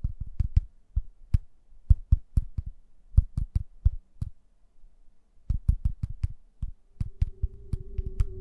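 Irregular low thumps, each with a sharp click on top, some in pairs like a heartbeat and some in quick runs. About seven seconds in, a steady held tone comes in underneath as ambient music begins.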